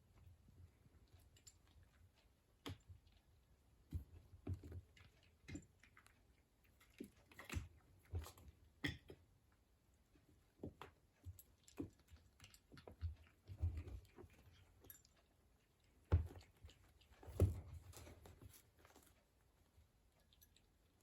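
A kitten playing on its own with a toy: irregular light taps, knocks and scuffs, with two louder knocks near the end.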